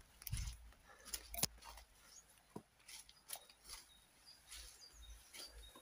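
Footsteps through dead leaves, brambles and undergrowth: irregular crunches and sharp twig snaps, with a low thud near the start.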